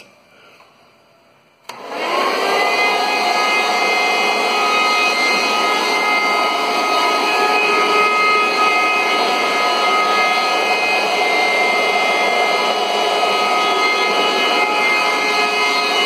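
Hoover Runabout Deluxe upright vacuum cleaner switched on with a click a little under two seconds in, its motor spinning up within half a second to a very loud, steady running with a high whine. The owner says it has made this noise since it was new, so it is not a sign of wear.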